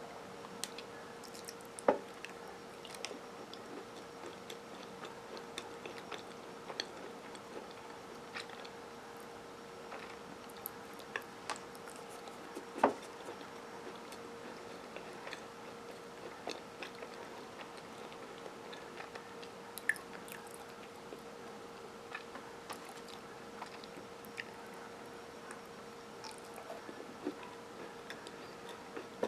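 Close-up chewing and biting of S'mores Chips Ahoy! cookies: scattered mouth clicks and small crunches, sharpest about 2, 13 and 20 seconds in, over a faint steady hum.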